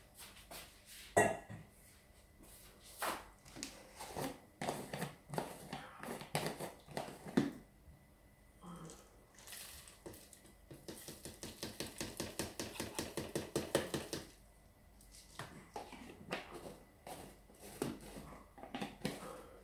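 Kitchen things being handled and set down in a string of knocks and clatters. About eleven seconds in, peanuts are shaken from a plastic jar into a food processor's plastic bowl in a quick, even rattle lasting about three seconds, followed by more scattered knocks as the jar is closed.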